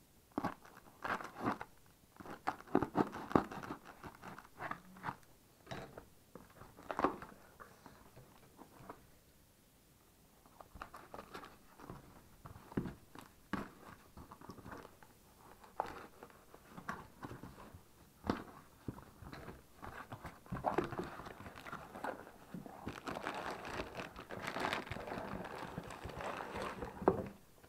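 Cardboard parcel being opened by hand: scattered crackles, scrapes and knocks of packing tape and cardboard, with a quiet lull partway through and a longer stretch of dense crinkling near the end as plastic-wrapped packages come out.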